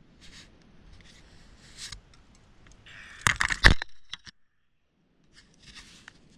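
Rustling and scraping of riding gloves and gear close to the microphone as the rider handles his fallen Kawasaki motorcycle, with a short burst of clattering knocks a little over three seconds in, the loudest moment.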